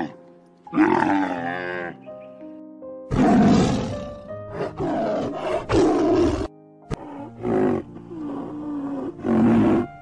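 A string of animal calls over light background music: a camel's bellowing call, then a tiger's roars and growls, several loud calls about a second apart.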